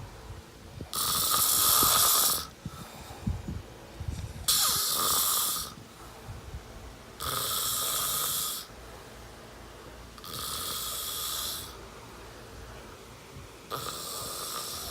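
Loud, frightening snoring: five hissing snores about three seconds apart, each lasting about a second and a half, with quieter breathing between them.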